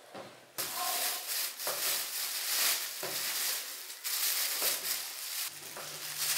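Thin plastic bags crinkling and rustling as hands dig through bundles of embroidery thread, starting about half a second in and going on unevenly with small surges.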